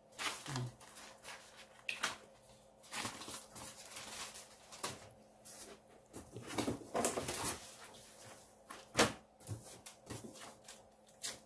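Rustling and scattered knocks of cardboard box flaps and plastic packaging being handled, in short irregular bursts.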